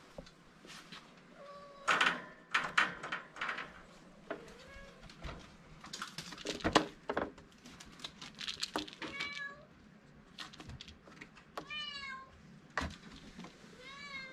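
Kitten meowing in several short, high-pitched calls, among frequent sharp knocks and rattles from the wire cage as it plays; the loudest knocks come about two seconds in and near the middle.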